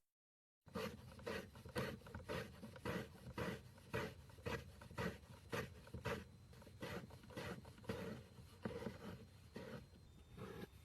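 Repeated strokes through kinetic sand, about two a second, starting after a moment of dead silence.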